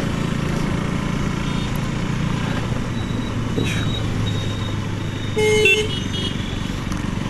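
KTM RC 200 single-cylinder motorcycle riding steadily in traffic, its engine and road noise running evenly. A vehicle horn honks briefly about five and a half seconds in.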